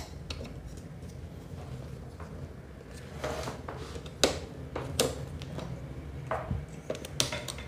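Irregular clicks, knocks and light rubbing of a power cable being handled and routed through the cable conduits along a monitor arm, over a faint low hum. The loudest knock comes about four seconds in.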